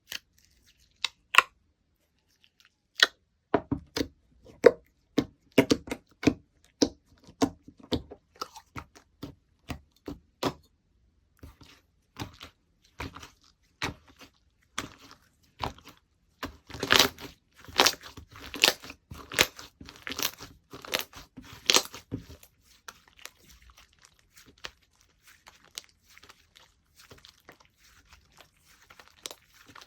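Slime being played with by hand, squeezed, stretched and pressed, giving irregular sharp clicks and pops, with a dense run of quick pops a little past halfway.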